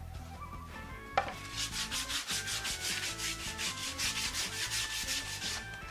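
Sandpaper rubbed by hand over plywood in quick, even back-and-forth strokes, after a single sharp knock about a second in.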